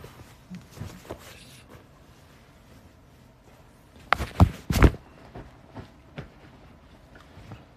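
Handling noise from a phone held in the hand: scattered soft clicks and rubs, then a quick cluster of loud knocks and bumps about four seconds in as the phone is moved.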